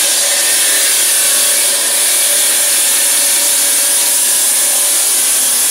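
Water-cooled stone-cutting circular saw running through a marble slab: a loud, steady high grinding hiss with a faint even hum underneath.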